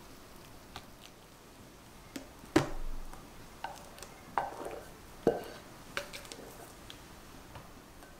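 Soft wet plops and a few light knocks as stiff whipped meringue is spooned into egg-yolk sponge-cake batter in a glass bowl. The sharpest knock comes about two and a half seconds in, followed by several softer plops.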